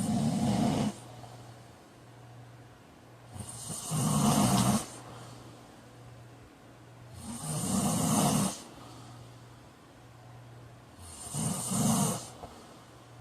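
A man snoring loudly in his sleep: four heavy snores, about one every four seconds, with quieter breathing between them.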